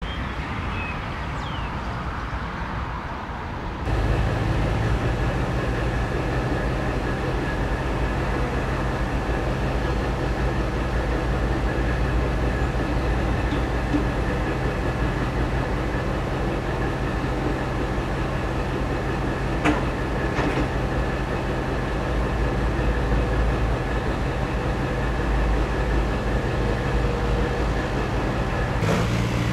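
Diesel engine idling with a steady low hum. It becomes much louder about four seconds in, and a single sharp metallic clank comes about two-thirds of the way through.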